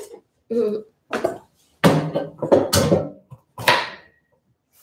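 A person's voice in about five short stretches with gaps between, too indistinct to make out words.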